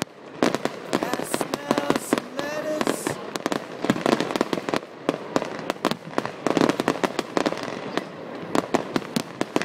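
Fireworks display going off: a dense, rapid run of bangs and crackling, many reports a second with only brief lulls.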